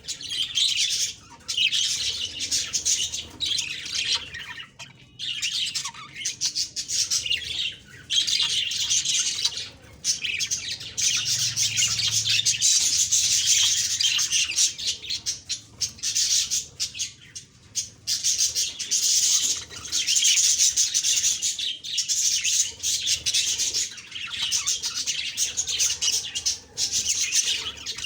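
Budgerigars chirping and chattering in long rapid bursts with brief pauses, a busy warbling warble of budgie song with occasional squawks.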